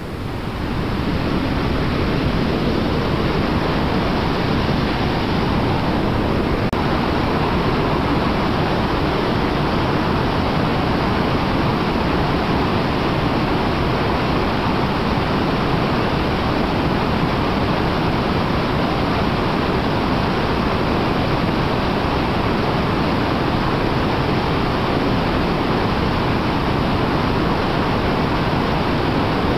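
River rapids at high water: a steady, loud rush of whitewater that does not let up.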